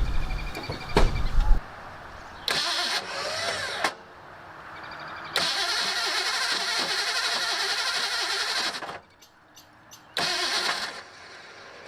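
Starter motor trying to crank a 1984 Ford Mustang's engine in several separate attempts: a few short bursts and one steady run of about three seconds, with quiet gaps between them. The engine never catches, a sign of a failing brand-new starter.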